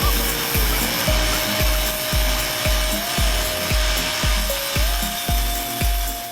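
Background music with a steady deep beat, about two beats a second, under a held melody that steps up and down in pitch.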